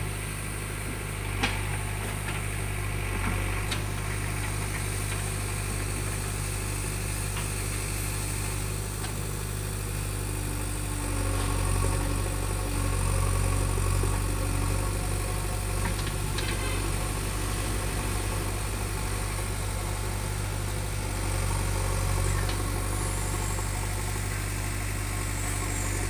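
JCB 3DX backhoe loader's four-cylinder diesel engine running steadily as the backhoe digs in red soil, louder for a few seconds in the middle. A few short sharp knocks stand out, the loudest about a second and a half in.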